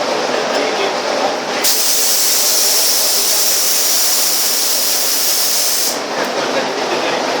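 Sagola paint spray gun hissing with compressed air: the spray comes on sharply about a second and a half in and cuts off about six seconds in, over a steady duller background noise.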